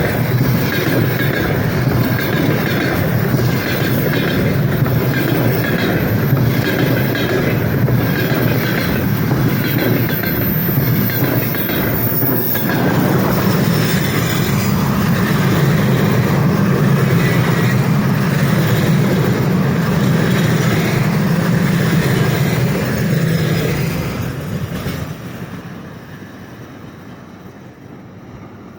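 An express passenger train running past at speed, its wheels clattering in a steady rhythm over the rail joints under a heavy rumble. Near the end the sound falls away as the train moves off.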